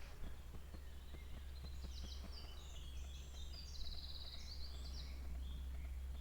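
A songbird sings several short high phrases, one of them a fast even trill, over a steady low drone from a distant Timberjack forestry machine working in the woods.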